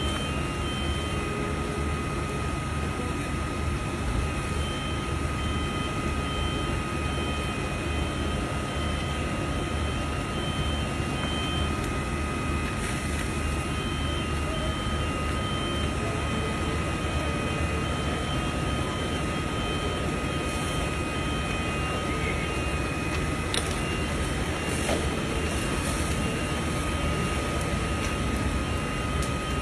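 Fire engine pump running steadily as it feeds a hose, with a low rumble, hiss and a constant high whine. A few sharp cracks come through, mostly in the second half.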